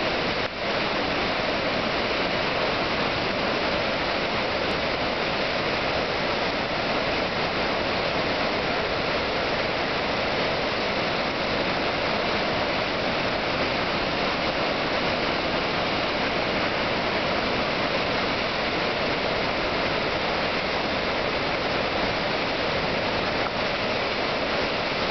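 Steady rushing of Sahalie Falls on the McKenzie River, a large waterfall pouring into its pool.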